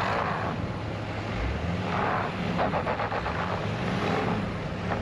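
Truck engines running in deep snow, with a rapid rattle for about half a second midway.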